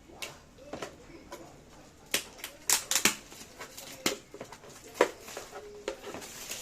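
Irregular sharp clicks and clacks of a torque wrench and its hard case being handled, with a cluster of the loudest about two to three seconds in and another strong click about five seconds in.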